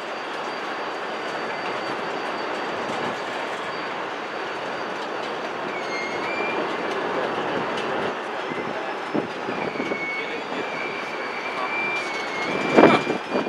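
Loaded coal hopper cars rolling slowly on steel wheels, a steady rolling rumble with a thin high wheel squeal setting in about halfway. A single loud bang near the end.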